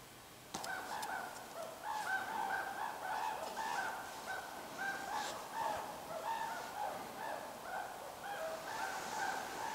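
Birds calling: a steady run of short repeated notes, several a second, starting abruptly about half a second in, with a few sharp clicks among them.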